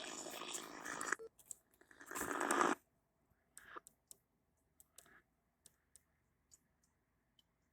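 Dense noisy audio that cuts off abruptly about a second in, a short louder noisy burst around two seconds in, then scattered faint clicks over a faint steady hum.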